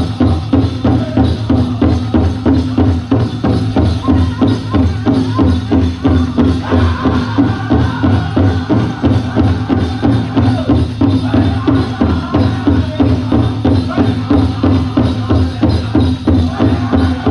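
Powwow drum group performing a chicken dance song: a big powwow drum struck in a steady, even beat, with the singers' high voices over it.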